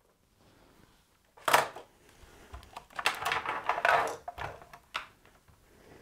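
Clatter of small hard objects and test leads being handled on a workbench. A sharp knock comes about a second and a half in, then a run of rattling and clicking, and a few last clicks near the end.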